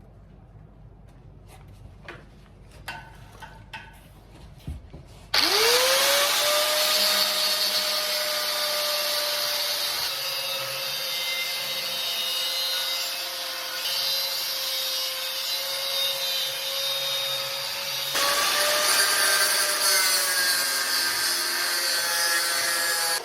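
A few light clicks and taps, then about five seconds in an angle grinder spins up with a quickly rising whine that settles to a steady pitch, and cuts steel plate for gussets with a loud, harsh hiss. The cut runs on to the end, with a slight change in load about three-quarters of the way through.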